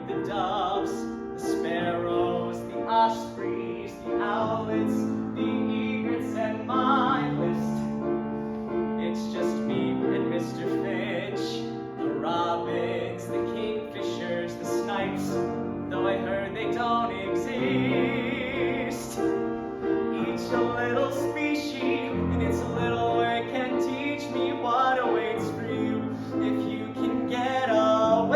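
Music: a piano-led instrumental passage of a show tune, with a high melody line that wavers in vibrato partway through and no sung words.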